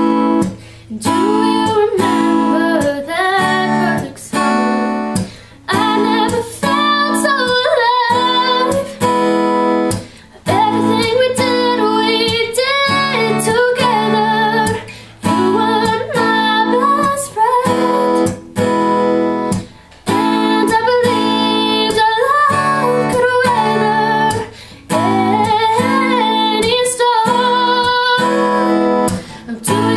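A woman singing, accompanying herself on a strummed acoustic guitar.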